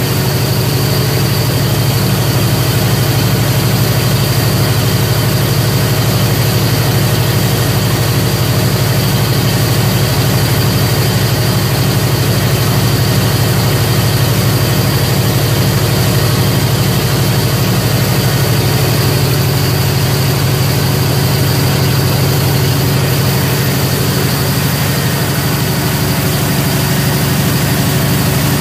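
Mitsubishi S16R-PTAA2 turbocharged V16 diesel engine of a 2000 kVA generator set running steadily on a test run, a loud even drone.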